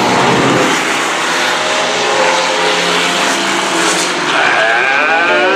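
Dirt-track Pro 4 race truck engines running loudly. About four seconds in, an engine revs up and its pitch rises.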